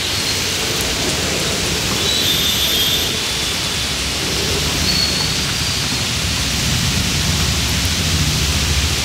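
Steady rushing hiss of churning floodwater and heavy rain. The low hum of motorbike and auto-rickshaw engines wading through the water comes up in the last couple of seconds.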